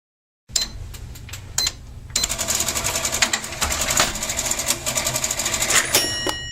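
Mechanical cash register ringing up: a rapid rattling clatter of keys and gears that grows busier about two seconds in, ending in a bell ding that rings on and fades, totting up the prices of the foley tools.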